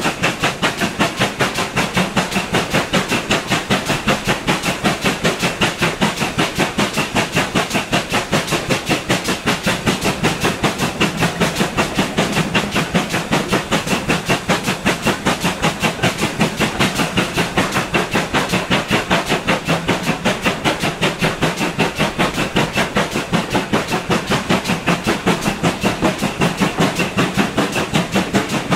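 GWR 4200 Class 2-8-0 tank engine No. 4247, a two-cylinder steam locomotive, working hard on a climb, its exhaust beats coming in a fast, even rhythm, with the rumble and clatter of the train's wheels on the rails. Heard from a carriage window close behind the engine.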